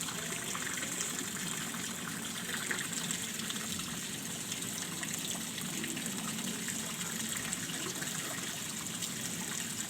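Steady rush of running water, an even gushing with no change in strength.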